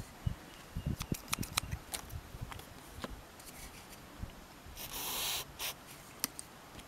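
Scattered light clicks of steel scissors being handled, then a short hiss of Rem Oil gun-oil aerosol sprayed onto the scissors' pivot about five seconds in, to free up the stiff, worn scissors.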